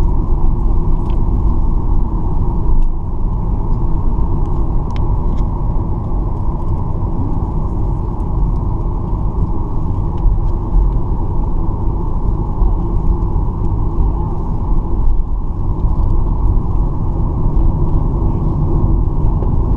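Steady low rumble of a Boeing 737-800's CFM56 jet engines and airframe, heard inside the passenger cabin as the airliner rolls on the ground after landing, with a steady hum running over it.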